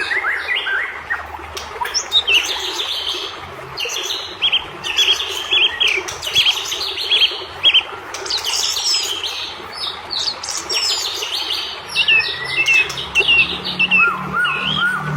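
White-rumped shama singing a fast, varied song: rapid runs of short chirps and upswept whistles, with a string of repeated rising, lower whistles near the end, over a steady background hiss.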